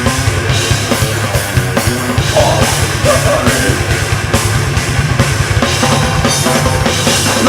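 Heavy rock band playing live: fast drumming on a drum kit under a dense wall of instruments, with a higher lead line that bends in pitch from about two seconds in.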